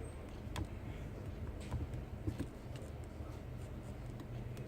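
Scattered light clicks and taps of small phone parts being handled as a Nokia 5's display is fitted, a few spread out irregularly, over a steady low electrical hum.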